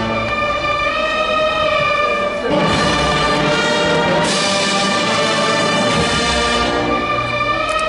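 Brass band playing a slow funeral march in long held chords, changing chord about two and a half seconds in and again near the end.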